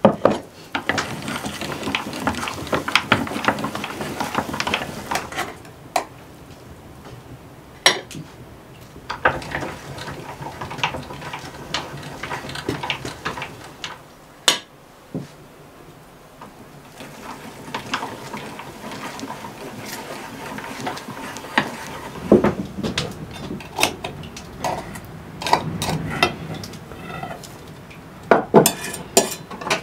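Kitchen clatter: utensils clinking and scraping against pots and bowls in irregular bursts with short pauses, with scattered sharp knocks.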